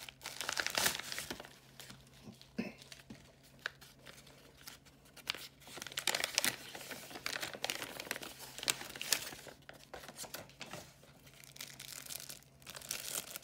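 A USPS Priority Mail envelope being torn open by hand, with uneven tearing and rustling of paper and a few sharper rips. Near the end a clear plastic bag holding a slabbed coin crinkles as it is handled.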